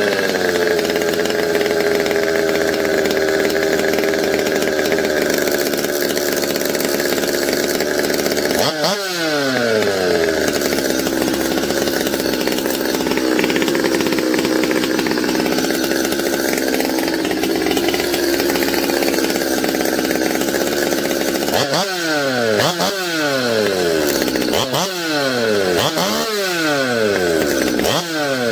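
Stihl MS 200T top-handle chainsaw's two-stroke engine running steadily. It is revved once about a third of the way in and falls back, then given about six quick throttle blips near the end, each rising and dropping back. It keeps running without cutting out on the new crankshaft seals.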